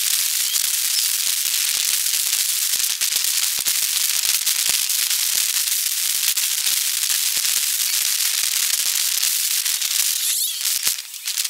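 A steady high-pitched hiss dense with rapid crackles and clicks, dipping briefly near the end.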